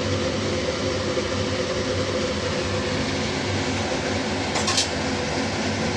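Steady mechanical hum with a broad, even hiss. A brief sharp noise falls about three-quarters of the way through.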